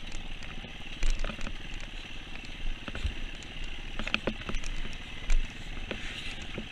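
Dirt bike running and rattling as it is ridden down a rough, rutted muddy trail, heard from on the bike, with three heavier knocks about one, three and five seconds in.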